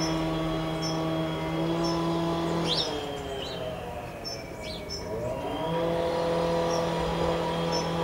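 A steady, even engine hum whose pitch sinks and fades about three seconds in, then rises and returns about two seconds later. Small birds chirp in short high notes over it.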